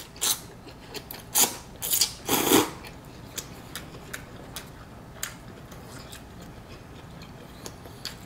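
A person slurping rice noodles and broth from a bowl of pho: several loud slurps in the first three seconds, followed by quieter chewing with faint clicks.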